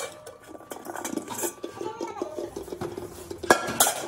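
Pressed steel gas-cylinder end caps clinking and scraping as they are handled in sand. Two loud ringing clangs come close together about three and a half seconds in.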